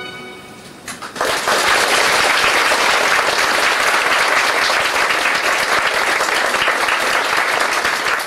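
Audience applauding: a few scattered claps about a second in, quickly building into steady, full applause.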